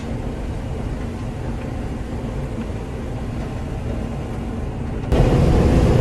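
Farm machine's diesel engine running with a steady low drone. About five seconds in it suddenly jumps louder.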